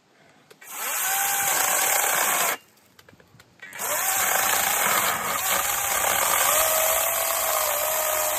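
Wild Badger 20-volt cordless electric chainsaw with a 12-inch bar, triggered on about a second in and let off briefly, then run again from about four seconds in while cutting easily through a 4-inch log, its motor whine wavering slightly as the chain bites.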